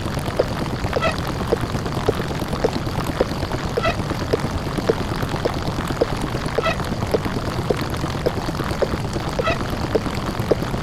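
Heavily distorted, "deep fried" microwave oven running sound effect: a steady rough drone with short clicks about three times a second and a brief higher blip every few seconds.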